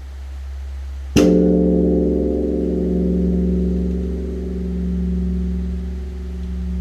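Large bronze Korean temple bell (beomjong) struck once with a swung wooden log about a second in, then a long ringing hum that swells and fades in a slow pulse. A deep hum left from the previous stroke sounds underneath. The bell is rung to call the temple to dawn service.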